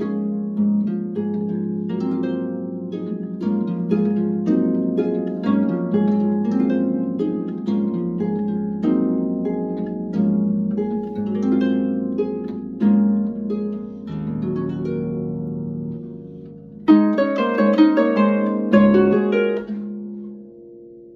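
Instrumental music of plucked, harp-like notes ringing over a held low note. Past the middle it thins to a few sustained notes, then a louder flurry of plucked notes comes in near the end and fades away.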